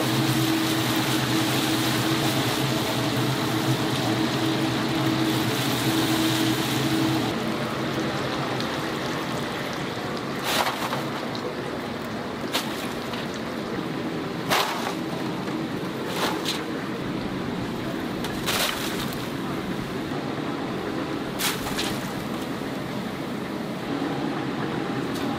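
Chicken deep-frying in oil in a large cast-iron cauldron: a steady sizzle over the hum of the burner. The hum drops away about seven seconds in, and several sharp metal clanks follow.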